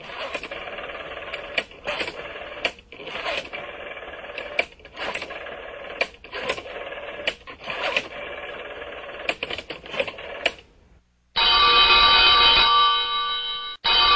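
A rotary telephone dial is turned and spins back again and again, clicking and whirring. About eleven seconds in, an old telephone bell starts ringing loudly and rings twice.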